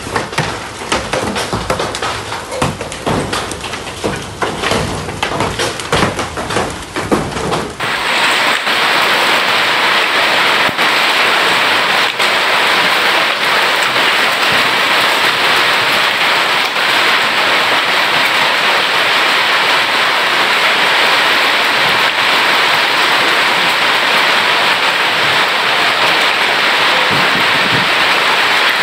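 Hailstorm: for about eight seconds, hailstones clatter down amid rain in many sharp, irregular impacts. Then it changes abruptly to a steady, loud hiss of heavy rain and hail pouring down.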